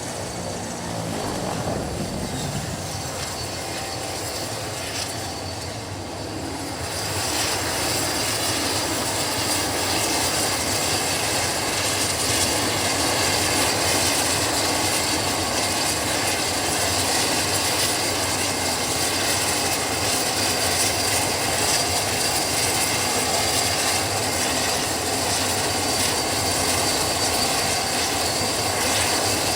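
Turboprop engines of a De Havilland Canada Dash aircraft running with a steady whine. About seven seconds in the sound grows louder and fuller, then holds at a steady level.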